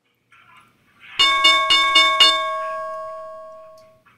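A soft whoosh, then five quick bell-like chime strikes, about four a second, with the last one ringing out and fading over about two seconds.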